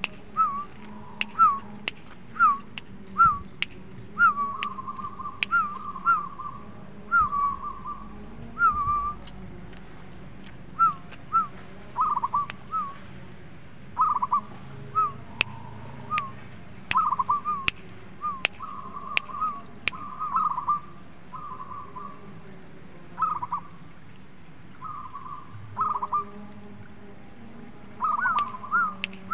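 Zebra dove (perkutut) singing in its cage: phrase after phrase of short, quick cooing notes, with a few pauses of a second or two between phrases.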